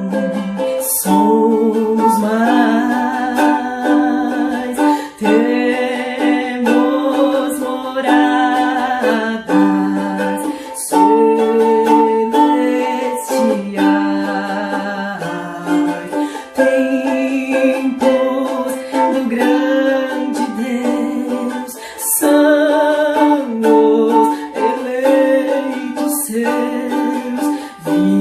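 Ukulele strummed in chords, accompanying a voice singing a slow hymn melody.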